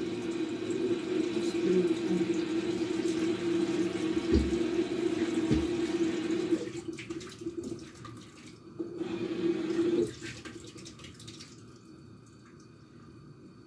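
Kitchen tap running into the sink as hands are rinsed under it, with a steady rushing. The water cuts off about two-thirds of the way in, runs again briefly, then stops. Two dull knocks sound midway.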